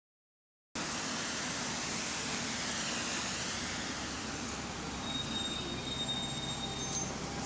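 Bus engine and running noise heard from on board, steady and even, starting abruptly a little under a second in; the bus has an exhaust leak. A faint thin whistle sits over it for a couple of seconds near the end.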